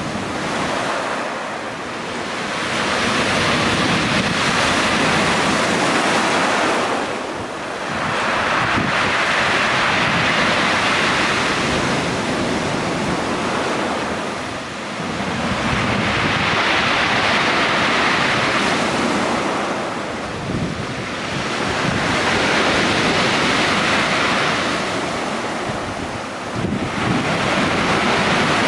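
Storm surf breaking on a pebble beach, loud and continuous, swelling and easing about every six seconds as each wave rushes in and drains back, with wind on the microphone.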